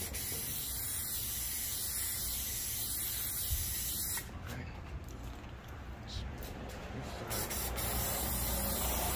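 Aerosol spray-paint can spraying a light second coat: a steady hiss for about four seconds, easing off for a few seconds, then hissing steadily again from about seven seconds in.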